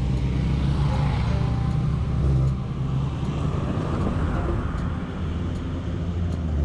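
Loud, steady low engine rumble.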